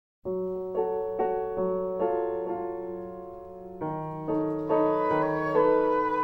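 Instrumental film-score music: a piano plays a slow melody over held low notes. The music starts a fraction of a second in, with notes struck about every half second.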